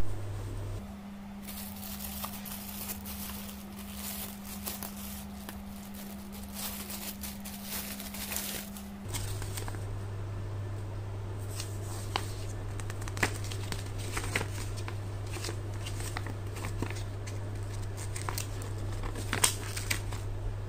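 Clear plastic wrapping crinkling for the first several seconds, then paper rustling with sharp little ticks as an instruction booklet is handled and its pages flipped.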